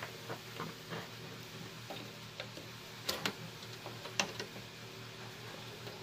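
Scattered light clicks and taps as a graphics card is handled and fitted into an open desktop PC case, the card and its parts knocking against the case.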